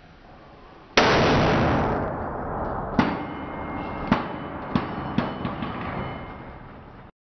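The 20-pound drop weight of a liquid-oxygen mechanical impact tester falls and strikes the striker pin on the anvil with a sudden loud bang about a second in. A rushing noise follows and slowly fades, broken by several sharper knocks.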